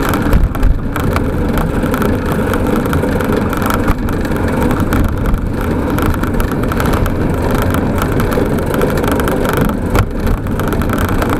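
Milan SL velomobile rolling at speed: a steady low rumble of tyres on the road and rushing air, heard through its fairing shell, with a couple of brief bumps about half a second in and near the end.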